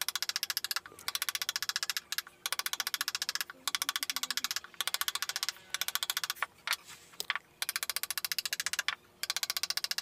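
Small hammer tapping a wooden-handled carving chisel in fast, even strokes, about ten a second, as the chisel cuts a diamond crosshatch into the wood. The taps come in runs of a second or two with short breaks between them.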